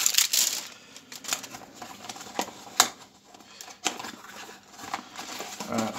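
Small cardboard-and-plastic toy packaging being handled: a short rustle at first, then scattered light clicks and taps at irregular times.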